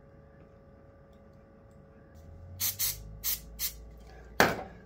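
Aerosol CA-glue activator (FastCap) spraying in short spritzes: four quick sprays, then a louder, longer one near the end, setting the super glue on a crown molding joint.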